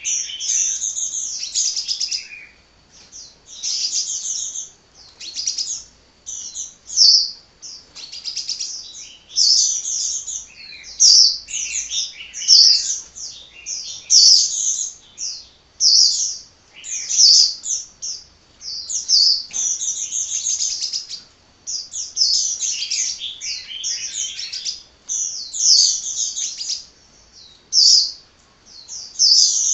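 Sunbird singing almost nonstop: fast, high-pitched chirping phrases of a second or two, separated by short pauses.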